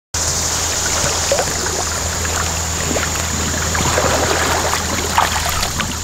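Shallow river water flowing and lapping, with small splashes and sloshing as a snorkeler swims and wades through it.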